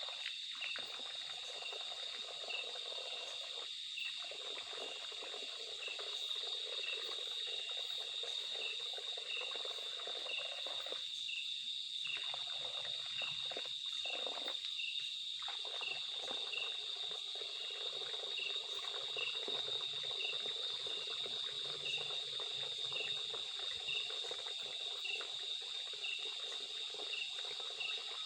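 Night insects calling: a steady high-pitched drone with a second insect chirping regularly, a little more than once a second.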